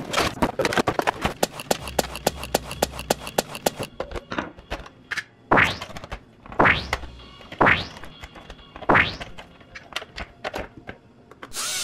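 Rapid clicking and rattling of plastic and cardboard as a Nerf Hyperfire blaster is unboxed and handled. Then come four quick falling swoops about a second apart while D batteries are fitted into its battery compartment. A motor starts whirring right at the very end.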